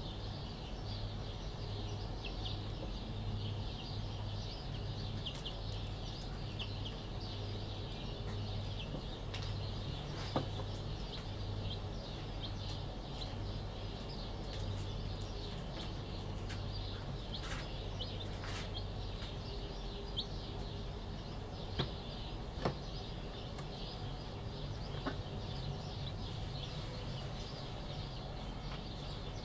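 Young chicks peeping continuously in short, high-pitched cheeps. Under them runs a low, regularly pulsing hum through about the first half, and there are a few sharp knocks.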